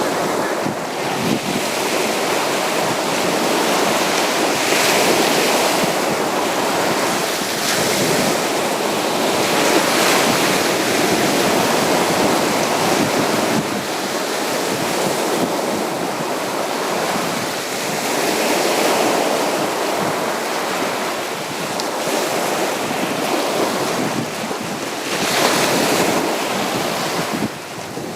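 Sea waves breaking on a beach: a continuous wash of surf that swells and eases every few seconds as waves come in.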